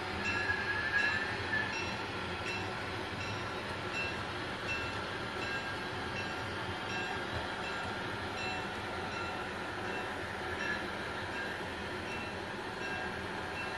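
HO scale model passenger train rolling past on its track: a steady running sound with faint, regularly spaced ticks, and a brief higher tone in the first couple of seconds.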